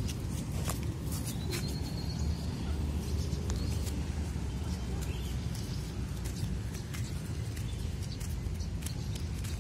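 Outdoor ambience: a steady low rumble with scattered light clicks and a few faint bird chirps, the clearest about one to two and a half seconds in.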